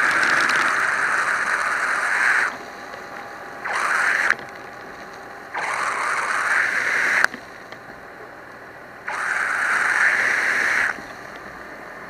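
Water from a fire hose stream spraying and splashing close by, in four hissing bursts of one to two seconds each that start and stop abruptly.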